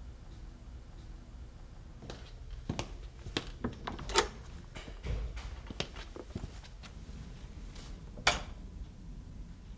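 Footsteps on a hard floor and the knocks and clicks of a heavy push-bar door being opened and let shut, with two sharp clicks, one about four seconds in and one near the end, over a steady low hum.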